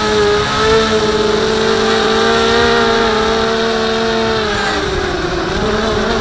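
Blade 200QX quadcopter's four brushless motors and propellers whining steadily, heard from the camera mounted on the quadcopter. The pitch wavers slightly, dips about four and a half seconds in, then rises again.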